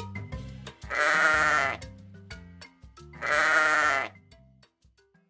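Sheep bleating twice, each bleat under a second long, over background music that fades out.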